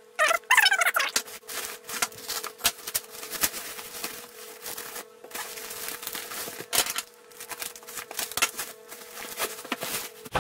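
Scissors snipping through a plastic poly mailer bag, with the plastic and bubble wrap crinkling and rustling as a package is pulled out: a busy string of sharp clicks and crackles over a faint steady hum.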